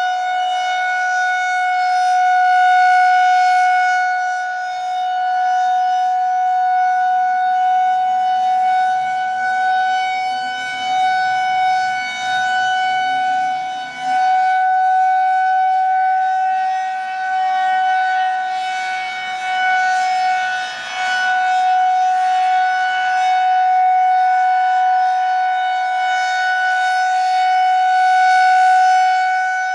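Federal Signal 2001-130 rotating electromechanical outdoor warning siren sounding a steady alert tone at a held pitch. Its loudness swells and fades as the rotating head sweeps past.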